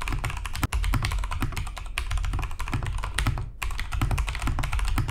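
Fast typing on a Durgod Fusion mechanical keyboard with Cherry MX Speed Silver linear switches: a dense run of keystroke clacks that stops briefly twice.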